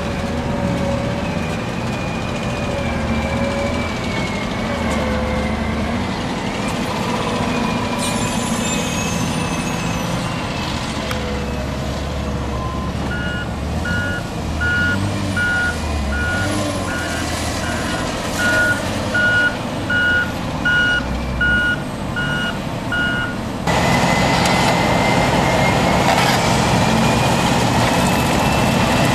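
Diesel engines of motor graders running on a dirt earthworks, with a reversing alarm beeping steadily, about one and a half beeps a second, through the middle of the passage. Near the end the sound steps up suddenly to the louder, denser run of a Caterpillar D10N dozer push-loading a CAT 631E scraper.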